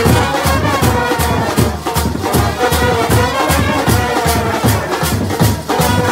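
Brass street band (band baja) playing a Bhojpuri tune: trumpets carrying the melody over a bass drum and clashing hand cymbals on a fast, steady beat.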